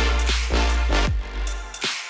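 Electronic background music with heavy bass and a drum hit about every half second; the bass drops out near the end.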